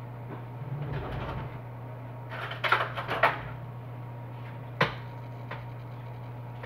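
Kitchen rummaging for butter: a low rumble, then a short cluster of knocks and clatters a little over two seconds in, and a single sharp click near five seconds. A steady low hum runs underneath.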